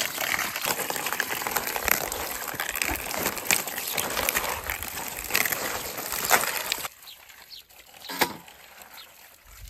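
Tap water running and splashing onto napa cabbage leaves in a steel basin as they are rinsed by hand, with the leaves being rubbed and turned under the stream. The water sound cuts off suddenly about seven seconds in, leaving a quiet background with a few faint knocks.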